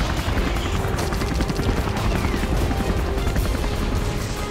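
Rapid automatic gunfire from a helicopter, with the helicopter's rotor running, under dramatic background music.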